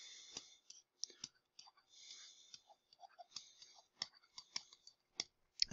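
Faint, irregular clicks and taps of a digital pen writing by hand on a screen or tablet.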